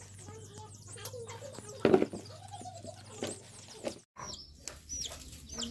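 Domestic chickens clucking, with many short, high, falling chirps, and a single knock about two seconds in.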